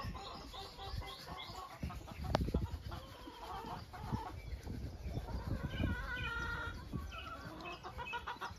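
Chickens clucking in short repeated calls, with dull footsteps thudding on the boards of a wooden footbridge, loudest about two and a half seconds in.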